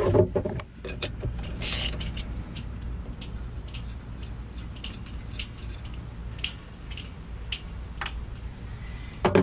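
Stainless steel boat steering wheel creaking and clicking on its shaft as it is pulled to free it from the stuck stem: irregular light metallic clicks, one or two a second, with a brief scrape about two seconds in, over a steady low hum.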